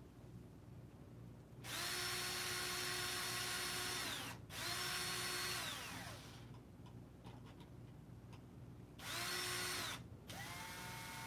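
Cordless drill-driver running in four short bursts, screwing into the printer's sheet-metal frame. Two runs come together in the first half and two more near the end; the last is lower in pitch. Each whine winds down in pitch as the trigger is let go.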